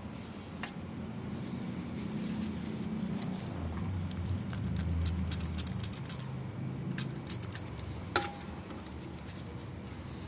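Scattered light clicks and taps of small hardware being handled, with one sharper click about eight seconds in, over a low steady hum.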